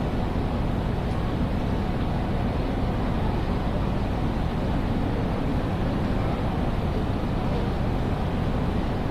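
Steady, even background ambience of a large railway station, mostly a low rumble with no distinct events standing out.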